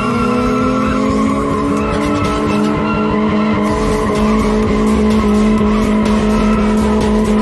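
Car doing a burnout: its engine is held at high, steady revs while the rear tyres spin and squeal on the tarmac.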